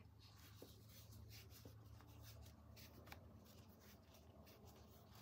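Near silence: faint rustling and a few light ticks of a crochet hook drawing cotton yarn through stitches, over a low steady hum.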